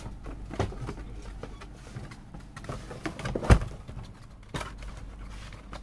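Handling noises as goods are moved about on a counter: a few scattered clicks and knocks, the loudest a sharp knock about three and a half seconds in, over a low steady hum.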